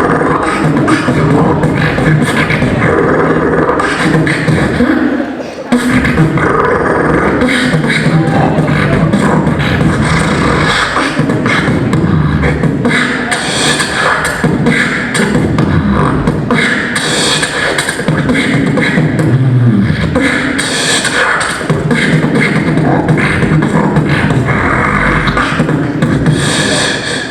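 A beatboxer performing a continuous routine of vocal drum beats, deep bass and sharp snare-like clicks and hisses, amplified through a microphone and PA speakers, with a brief break about five seconds in.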